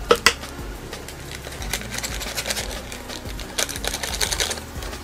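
Two sharp clicks at the start, then a small plastic sachet of soup paste crinkling and rustling in the fingers as it is squeezed out into a cup noodle.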